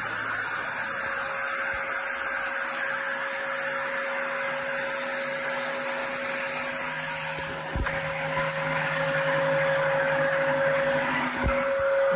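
CNC machine running, a steady whine over a hissing noise, with a click about eight seconds in after which it gets a little louder.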